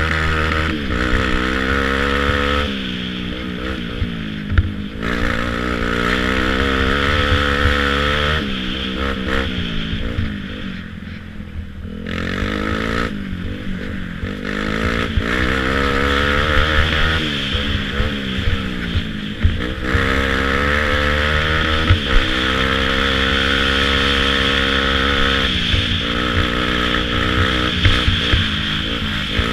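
Youth ATV's engine, heard from on board, revving hard under racing throttle, its pitch climbing and dropping again and again as the rider accelerates and backs off. About ten seconds in it goes quieter and lower for a couple of seconds, then picks up again.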